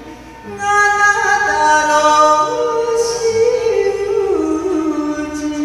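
A woman singing a Japanese song into a microphone, her voice amplified through a PA. She comes in about half a second in with long held notes, then steps down in pitch near the end.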